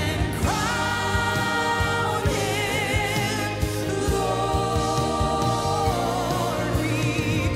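Live gospel worship music: a female lead singer holding long notes with vibrato, backed by singers and a choir over a band.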